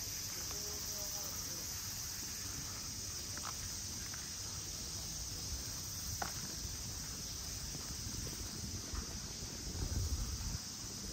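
Steady high-pitched drone of insects chirping throughout, over low rumbling noise that grows louder near the end, with a few faint clicks.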